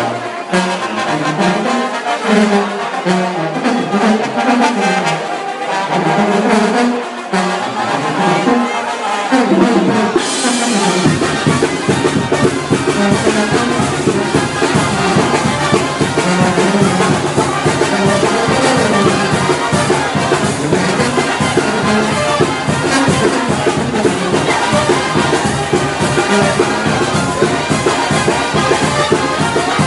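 Brass band dance music, with trombones and trumpets leading. About ten seconds in the music gets fuller, adding a deep bass and a steady beat.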